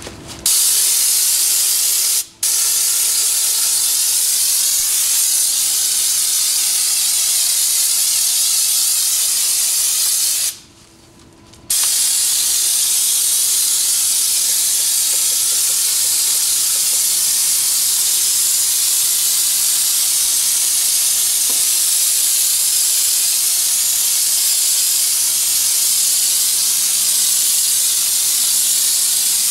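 Compressed-air spray gun from a Raptor bed liner kit spraying liner with a loud, steady hiss. It stops for an instant about two seconds in and pauses for about a second near the middle before starting again.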